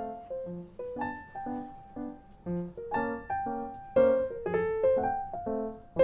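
Background music: a light piano tune, with notes and chords struck at an even pace.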